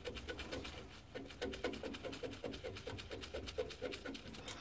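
Ratchet wrench clicking rapidly and evenly, about six clicks a second, as a bolt on a drum brake backing plate is turned; the clicking stops near the end.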